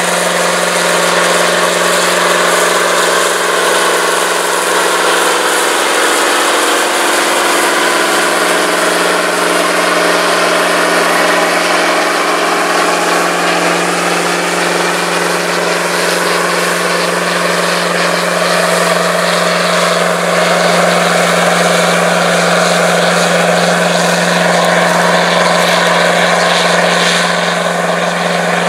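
V8 diesel engine of a big four-wheel-drive farm tractor running steadily under load as it pulls a moldboard plow, its pitch holding constant throughout.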